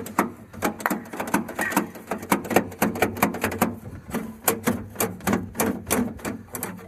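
Rapid, repeated plastic-and-metal clacking of a Jeep Cherokee XJ door latch and handle being worked over and over, about four clacks a second.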